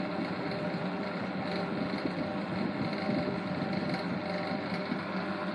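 1960s Eskimo model 2012 12-inch box fan running steadily on medium speed, with a rattle from the motor shaft because it needs spacers.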